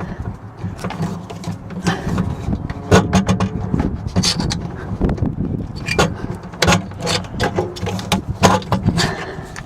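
Hand rivet gun being squeezed over and over to set a pop rivet: a rapid, irregular string of sharp metallic clicks and snaps as the jaws grip and pull the mandrel. A steady low hum runs underneath.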